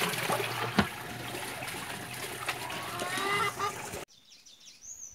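Tanquinho (small agitator washing machine) churning clothes, with water sloshing and splashing in the tub. It cuts off abruptly about four seconds in, leaving faint bird chirps.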